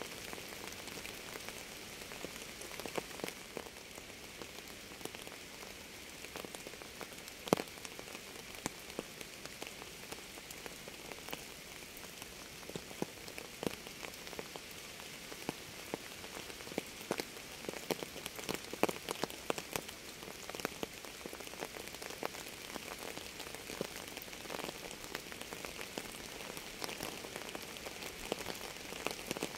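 Steady rain with many close drops tapping irregularly on a surface; one louder drop stands out about seven seconds in.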